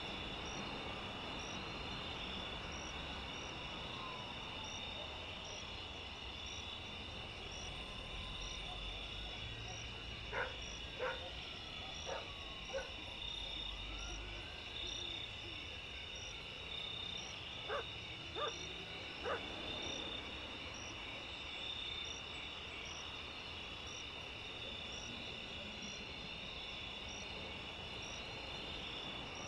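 Night chorus of crickets trilling steadily, with a faint regular pulse of higher chirps. Short sharp animal calls cut through it, four about ten seconds in and three more about seven seconds later.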